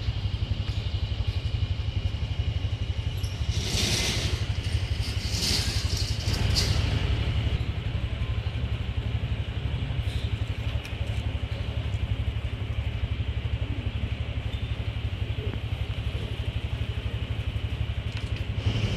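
Street traffic: a steady low engine rumble with fast even pulsing, and a motor vehicle passing louder about four to seven seconds in. A thin, steady high hum runs underneath.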